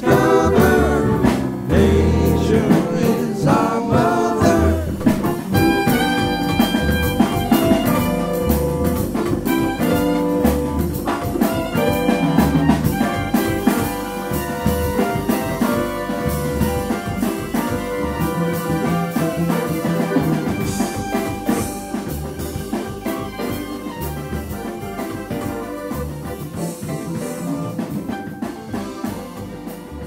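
Full-band music with a steady drum beat: the instrumental close of a song, fading out gradually over the last ten seconds or so.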